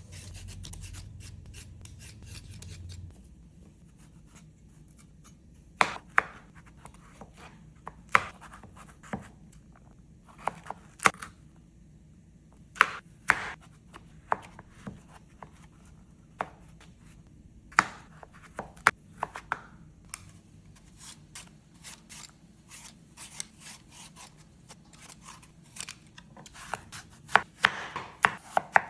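Kitchen prep sounds: a knife cutting food on a cutting board in sharp, irregular chops, often a second or two apart and bunched together near the end. A scraping, rubbing sound fills the first few seconds.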